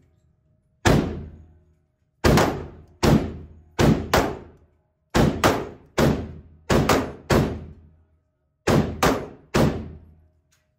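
Gunshots in an indoor shooting range: about fourteen sharp reports at irregular intervals, some in quick pairs, each followed by a short echoing decay.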